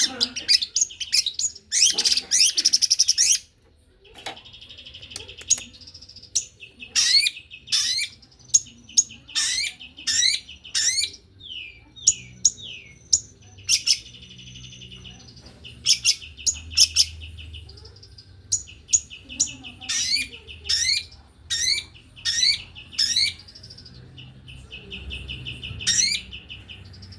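Long-tailed shrike (pentet) singing a fast, dense song: sharp rising notes in quick succession mixed with buzzy trills, with the loudest, thickest run of notes a couple of seconds in.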